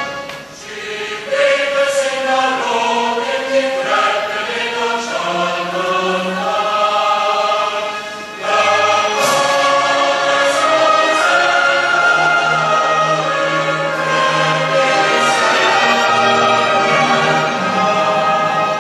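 A national anthem sung by a choir, many voices holding long notes, with short breaks between phrases near the start and about eight seconds in.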